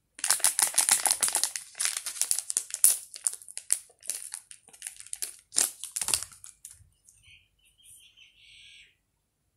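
Thin plastic packet crinkling and rustling as instant snow powder is poured from it into a plastic container. The crackling is dense at first, thins out, and stops about seven seconds in.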